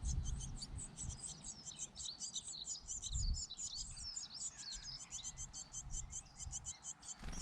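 Small birds chirping rapidly and without pause, many high, short notes, over a low uneven rumble on the microphone.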